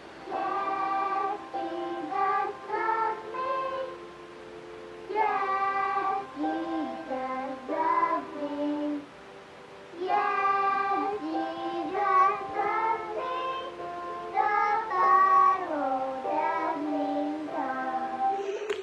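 A toddler singing a song in a small child's voice over backing music, in three phrases with short pauses about four and nine seconds in.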